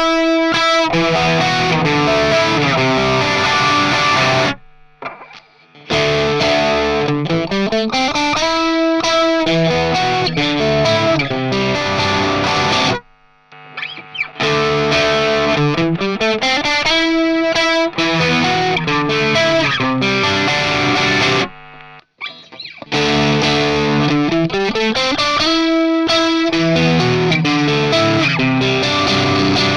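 Cort G260 electric guitar played through distortion. It plays four phrases, each opening with a quick rising run of notes, with short pauses between them.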